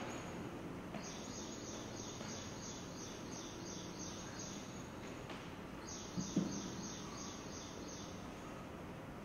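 Rhythmic high-pitched chirping, about three chirps a second with a short break midway, over a steady low room hum; a brief soft thump about six seconds in.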